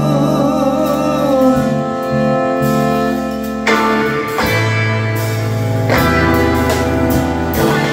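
A live rock band playing an instrumental passage on electric guitar, bass guitar, drum kit and keyboard. A wavering held note sounds at the start, and the band moves through new chords with drum hits in the second half.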